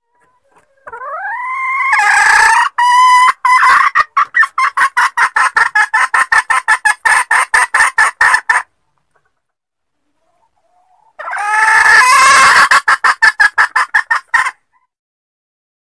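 Junglefowl hen calling: a rising drawn-out note that breaks into a fast, even run of clucks, about five a second, then stops; a second, shorter bout of the same calling follows a few seconds later. It is the hen's call that lures wild junglefowl cocks.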